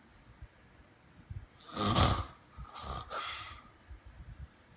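Snoring: after a quiet pause, one loud, rough snore about two seconds in, followed about a second later by a softer breath carrying a faint whistle.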